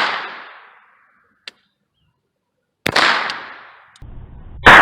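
.22 LR rounds fired from a Radical Firearms AR-15 pistol with a .22 conversion kit: a shot about three seconds in and another near the end, each a sharp crack that echoes away over about a second. The echo of a shot fired just before is still fading at the start.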